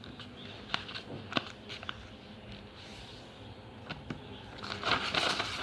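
A sheet of A4 paper being handled and folded: a few light taps and crinkles, then louder rustling near the end.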